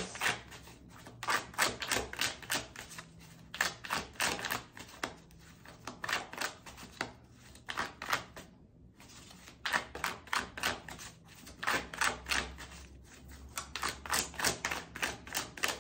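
Tarot cards being shuffled by hand: a quick, irregular run of light card slaps and flicks, with a short pause about nine seconds in.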